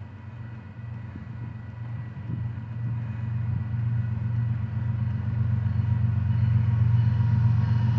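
Diesel engines of three Union Pacific locomotives (a GE C45ACCTE, an EMD SD70ACE and a GE C45AH) heading an empty coal train, a steady low drone growing louder as the train approaches.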